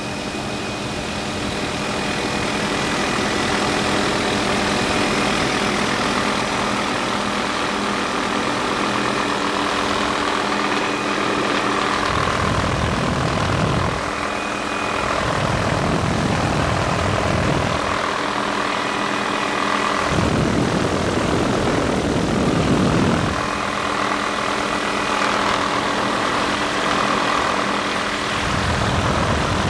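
Helicopter in flight, heard from inside the cabin: a steady engine and rotor drone, with low rumbling gusts of wind on the microphone breaking in several times.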